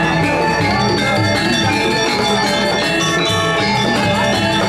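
Balinese gamelan playing: bronze metallophones ringing in a dense stream of overlapping notes.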